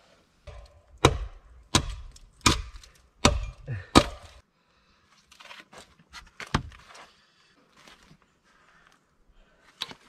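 Wood being chopped with an axe: a run of five sharp strikes about three-quarters of a second apart, then lighter knocks and one more strike near the middle.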